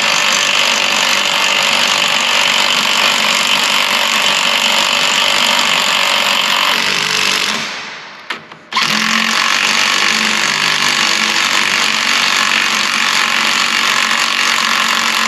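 Cordless impact wrench running lock nuts down onto rear axle brake studs. The nuts have oblong, triangled threads that lock on, so they drag as if stripping. The wrench winds down and stops about eight seconds in, then starts again a moment later.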